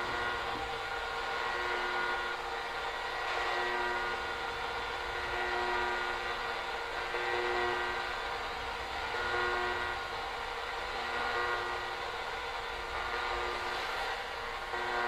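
Shortwave radio hissing with static and several steady tones at once; two low tones pulse on and off every second or two.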